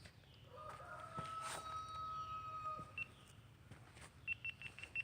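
Faint bird calls: a long, steady held call starting about half a second in, then near the end a quick run of about eight short, high chirps.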